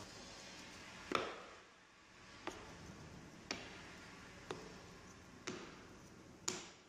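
Small plywood sacrificial boards set down one by one on an MDF table and onto each other: six light wooden clacks about a second apart, the first the loudest.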